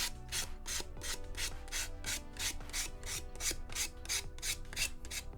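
Sanding stick or buffing block rubbed back and forth along the edge of a primed plastic model-kit part, in quick even strokes about three a second, on the first and coarsest grit of the series to pull off flash and smooth the edge.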